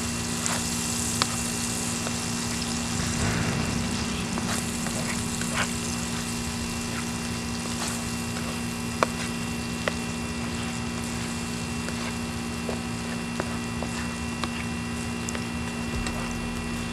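Chicken and vegetables frying in a skillet over a wood fire, a steady sizzle, with scattered sharp clicks and scrapes of a spatula stirring against the pan. A steady low hum runs underneath.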